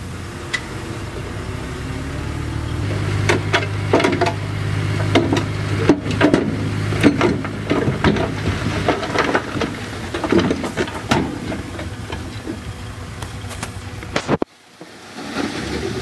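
Caterpillar D6D bulldozer's six-cylinder diesel running under load. The engine note grows stronger about three seconds in, with many sharp clanks and rattles through the middle. The sound breaks off abruptly near the end.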